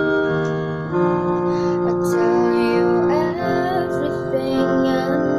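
Piano-voice electric keyboard playing sustained chords that change about every two seconds, with a woman's voice singing a wavering line over them in the middle.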